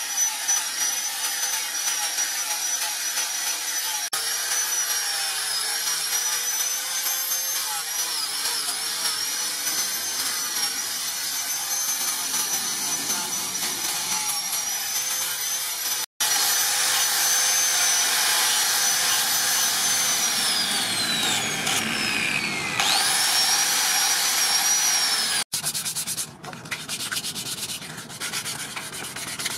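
Angle grinder with a sanding disc running with a high whine as it sands a wooden sword handle. About 21 s in, the motor winds down with a falling whine and then speeds back up with a rising whine. Near the end, sandpaper is rubbed by hand over the wooden handle.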